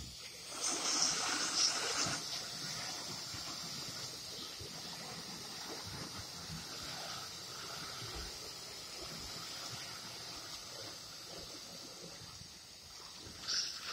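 Steady hiss of a water spray from a hose nozzle falling on a black plastic rolling toolbox and the ground around it. It is louder for about a second and a half near the start and briefly again near the end.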